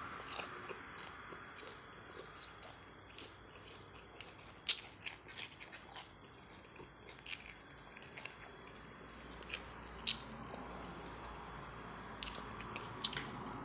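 A person chewing crunchy bamboo-shoot salad close to the microphone: irregular crisp crunches and clicks. The loudest comes about five seconds in, with others near ten and thirteen seconds in.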